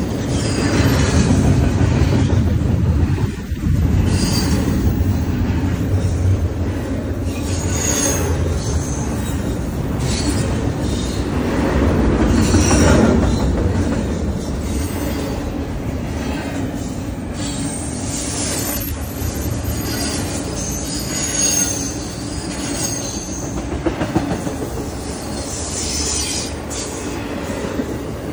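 BNSF double-stack intermodal freight train passing close by: container-laden well cars rolling over the rails with a steady, loud rolling noise. Brief high-pitched wheel squeals come and go.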